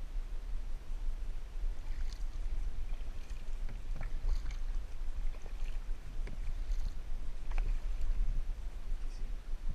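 Kayak on the water: small irregular splashes and drips from the paddle and hull, over a steady low rumble of wind on the microphone.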